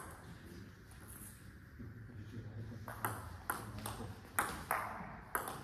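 Table tennis ball clicking off the rackets and the table: a single tap at the start, then a rally from about three seconds in, with about two hits a second.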